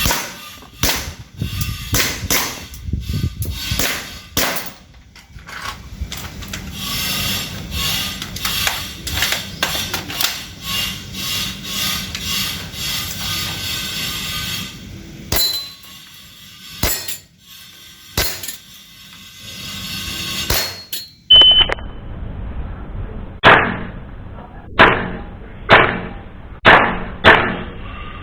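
Airsoft guns firing in a target drill: a busy stretch of rapid clicking shots and clatter, then a few single shots. After a short high beep comes a run of sharp, loud shots about one every half-second to second.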